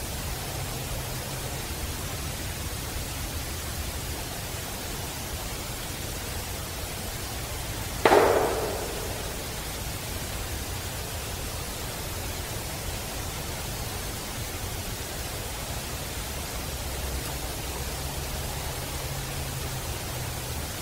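Steady hiss of a forest field recording, broken once about eight seconds in by a single sharp knock that rings out and fades over about a second.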